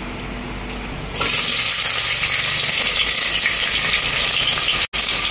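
Chopped onion tipped into hot oil in a large pot, starting to sizzle about a second in and sizzling steadily, with a brief dropout near the end.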